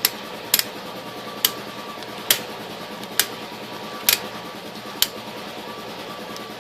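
Seven sharp metallic clicks at a steady pace of about one a second from a wrench tightening a bolt on an air compressor's pump head; they stop about five seconds in.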